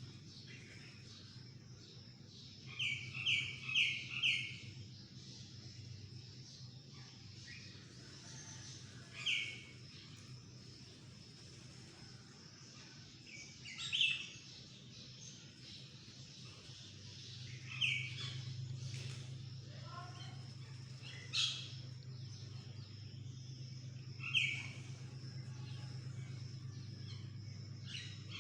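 A bird calling in short, sharp notes: a quick run of four about three seconds in, then single calls every four seconds or so. A steady low hum and a thin high steady tone run underneath.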